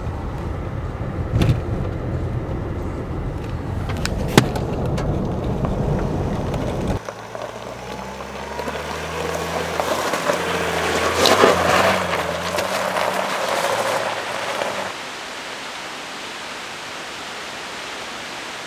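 Mercedes-Benz GLE driving slowly on a rough off-road track: a rumble with a few sharp knocks, then from about seven seconds in the engine's low hum with the tyres working over gravel and stones. From about fifteen seconds a steadier, quieter hiss.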